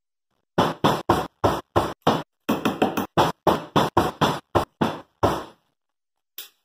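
Hammer knocking rapidly on a wooden frame, driving in staples: about twenty quick blows at roughly four a second that stop about a second before a single sharp click near the end.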